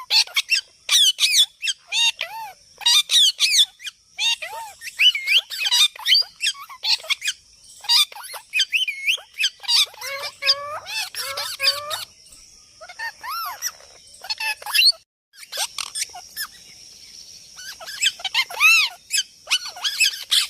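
Young pet parrot calling in rapid runs of short chirps and squawks that sweep up and down in pitch, with a short pause about 15 seconds in.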